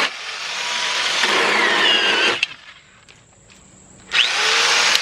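Black & Decker Alligator Lopper, a corded electric chainsaw, running and cutting through branches. The motor stops about two and a half seconds in, leaving a short quiet gap with a few light clicks, then starts cutting again just after four seconds.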